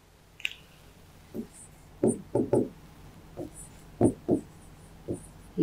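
Soft knocks and taps of a pen against an interactive display board as writing begins: a cluster of three about two seconds in, and more around four and five seconds in, with faint high ticks between.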